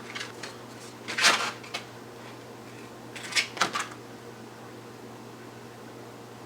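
Handling noise of a grip tape sheet on a skateboard deck: a few short rustling scrapes, the loudest about a second in and a cluster around three and a half seconds in, over a faint steady hum.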